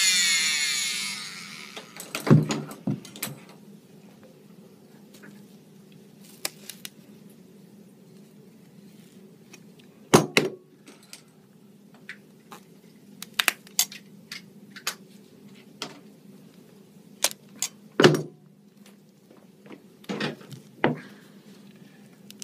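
An electric cast saw winds down and stops. Then come scattered clicks, cracks and knocks, three of them louder, as the cut cast is handled and pried open on the forearm.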